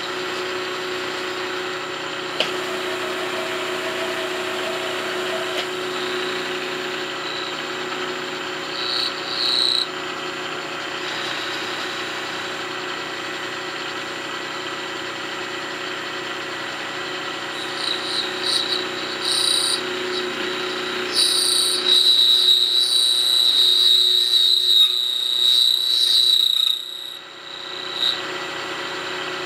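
Milling machine running with an end mill cutting a metal block: a steady machine hum with a high-pitched cutter squeal. The squeal comes in briefly about nine seconds in, returns in bursts later, and is loudest and steadiest for several seconds before the sound drops off sharply near the end.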